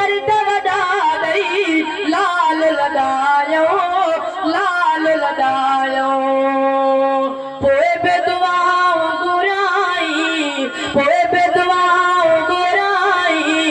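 A young male voice singing a Sindhi naat unaccompanied into a microphone, in long melismatic lines with one note held steady for about two seconds just past the middle.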